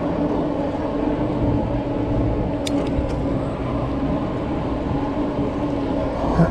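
Cyrusher Ranger fat-tyre e-bike rolling along a tarmac road: a steady riding hum with a constant low tone and wind on the microphone. Two short sharp clicks come about three seconds in.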